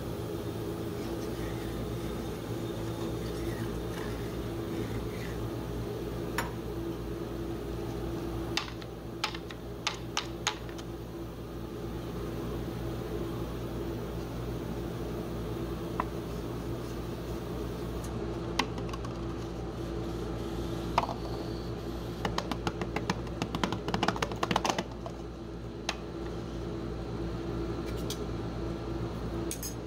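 Steady hum of a rolled-ice-cream cold plate machine's refrigeration unit, with scattered light clicks and taps of a metal spatula and a paper cup on the frozen steel pan, including a quick run of clicks about three quarters of the way through.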